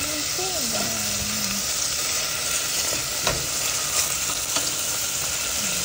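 Chunks of pork sizzling as they sear in a stainless steel pot, stirred and pushed around with a wooden spoon. A few sharp knocks of the spoon against the pot come between about three and four and a half seconds in.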